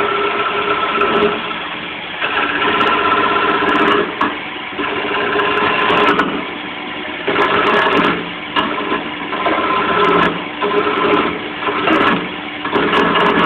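Wood lathe running with a steady motor hum while a turning tool cuts into the spinning wooden spindle, the cutting coming in about eight louder scraping strokes of a second or so each.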